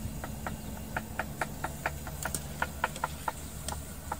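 Kofta frying in a large pot of hot oil: irregular crackling pops, a few a second, over a low steady hum.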